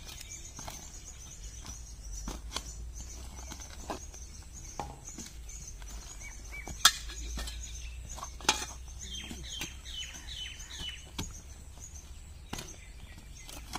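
Steel shovel blades chopping and scraping into earth, with scattered sharp strikes, the two loudest about 7 and 8.5 seconds in. Small birds chirp throughout, with a run of falling chirps about 9 to 11 seconds in.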